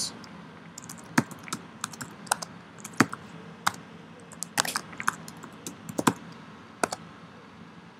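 Typing on a computer keyboard: a run of irregular, separate keystrokes with short pauses between them.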